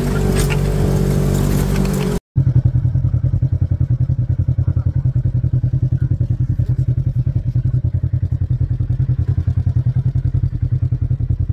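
Polaris RZR side-by-side engine running while driving along a dirt trail. After a sudden cut about two seconds in, the engine is heard idling with a steady, rapid, even throb.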